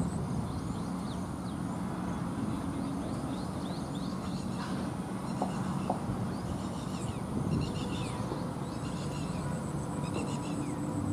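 Outdoor ambience: birds chirping in short repeated calls over a steady background hiss and a faint low hum.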